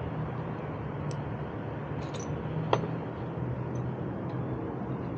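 Steady low background hum with a few faint ticks, and one sharp click a little past the middle.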